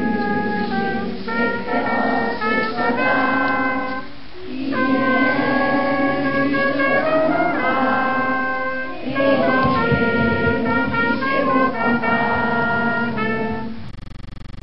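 Brass music: trumpets and trombones playing slow phrases of held notes, with short breaks between phrases about four and nine seconds in. Near the end it gives way to a quieter, different sound.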